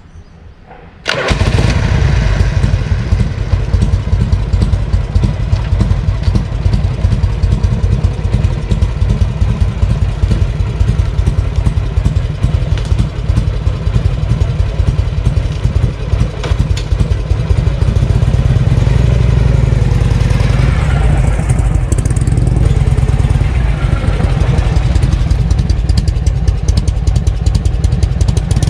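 Harley-Davidson Shovelhead FLH V-twin engine starting about a second in, then running at a steady, loud idle. The engine has just been repaired of an abnormal noise and is being run in.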